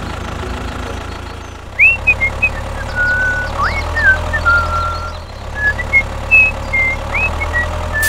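Tractor engine running steadily with a low hum. From about two seconds in, a series of short, high whistled notes, some rising sharply, sound over it.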